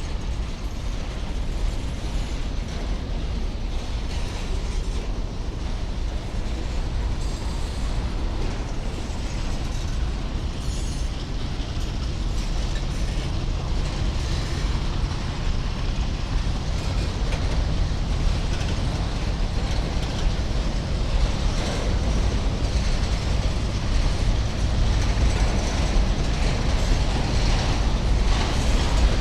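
Train rolling past, a steady rumble and rattle of wagons on the rails that grows slowly louder.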